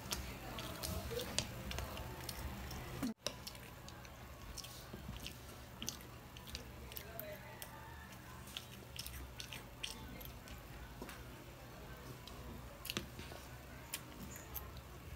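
Close-up eating sounds of a child chewing pancake, with scattered small clicks of a metal fork against a ceramic plate as she cuts pieces. The sound drops out briefly about three seconds in.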